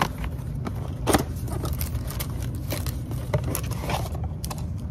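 Scrapes and sharp clicks of a new oil filter and its cardboard box being handled, irregular and several, the loudest about a second in, over a steady low rumble.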